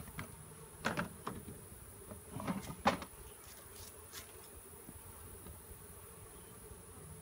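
Honeybees buzzing in a steady hum around an open hive. There are a few sharp knocks in the first three seconds.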